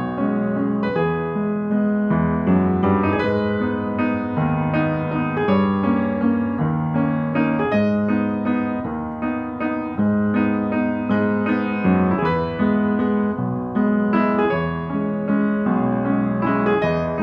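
Background piano music: a steady stream of struck notes over held bass notes that change every second or two.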